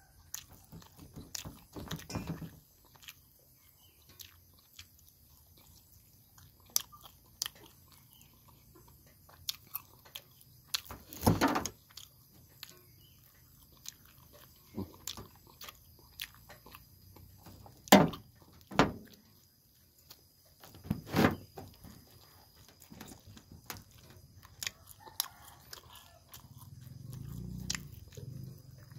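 Close-up eating sounds of a man eating sticky rice and grilled meat by hand: quiet chewing and mouth clicks, broken by a few louder sharp bites spread through the stretch. A low hum rises near the end.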